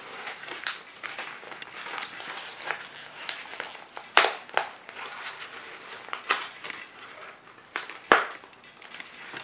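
Brown paper shipping mailer crinkling and rustling as it is folded and pulled open by hand, with a few sharp crackles of the paper. The loudest crackle comes near the end.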